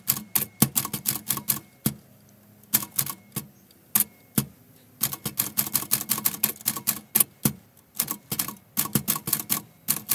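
Manual typewriter typing: quick runs of sharp key strikes as the typebars hit the paper, broken by short pauses.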